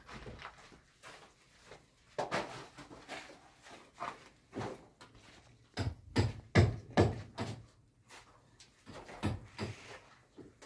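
A series of irregular knocks and thumps, busiest and loudest about six to seven seconds in.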